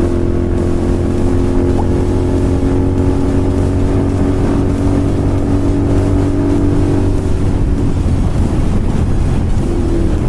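Royal Enfield Continental GT 650's 648 cc parallel-twin engine, fitted with an SS Moto slip-on exhaust, running under way at a steady speed. The higher part of the engine note fades about eight seconds in.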